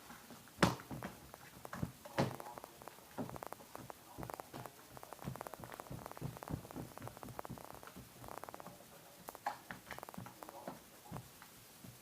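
Slime being squished, giving a run of small sticky clicks and crackling pops, densest in the middle, with a few sharper pops near the start.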